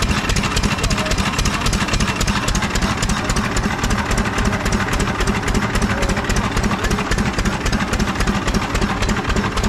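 Vintage stationary engine running steadily with a rapid, even beat, driving a small dynamo by a flat belt.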